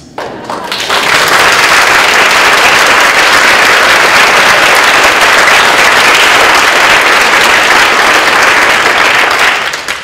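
Audience applauding: loud, dense clapping that swells up within the first second, holds steady, and dies away near the end.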